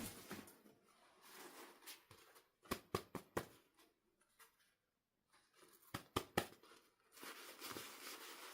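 Hands handling small plastic toys: a few sharp clicks and taps in quick clusters, then soft rustling near the end.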